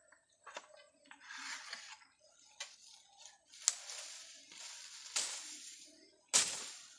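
Dry bamboo leaves and thin stems rustling and crackling as they are handled and pushed aside. There are a few sharp cracks among them, the loudest near the end.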